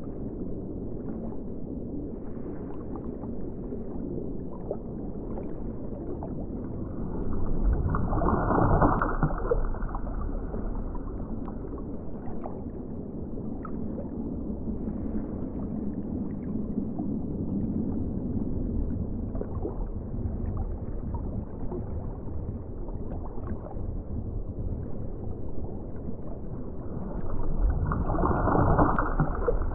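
Underwater ocean ambience: a muffled, low wash of water, with two louder surges, about eight seconds in and again near the end.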